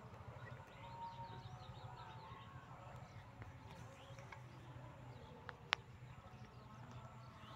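Faint rural outdoor ambience: scattered small birds chirping over a low steady hum, with one sharp click a little under six seconds in.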